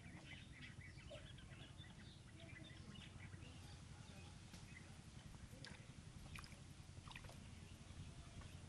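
Near silence: a faint low rumble of background noise with scattered faint chirps and clicks.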